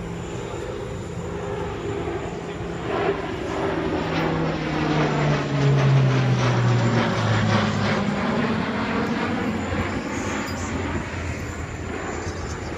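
Large four-engine aircraft flying low past. The engine noise swells to its loudest about six seconds in, and its steady tones drop in pitch as it goes by.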